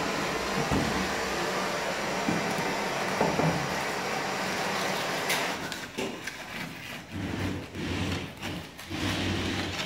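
A wooden 2x4 straightedge scraped back and forth across a wet mortar bed and its wooden form boards, screeding the raised fireplace hearth level for tile. A steady hiss stops about halfway, after which the strokes come as separate rasping scrapes.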